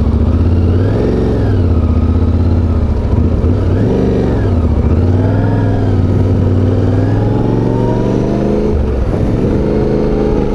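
Yamaha Ténéré 700's parallel-twin engine pulling away in slow traffic, its revs rising and falling a few times, then climbing steadily, dropping back about nine seconds in and climbing again.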